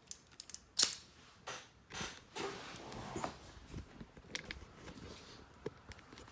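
Handling noise from a replica sonic screwdriver prop being polished by hand: scattered sharp clicks and knocks, the loudest a little under a second in, with a stretch of cloth rubbing on the prop a couple of seconds in.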